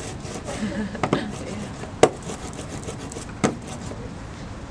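Rubber printing roller rolling back and forth through tacky black litho ink on a glass inking plate, a sticky rubbing hiss, with three sharp clicks as the roller is handled.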